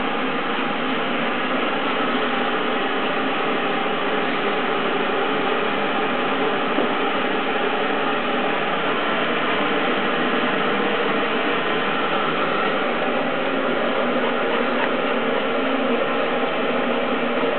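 Electric blower running steadily, an even hiss with a faint hum.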